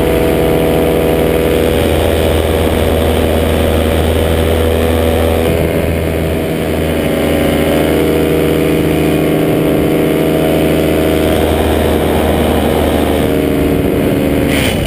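Paramotor's small two-stroke engine running steadily in flight. Its steady tone breaks off abruptly near the end.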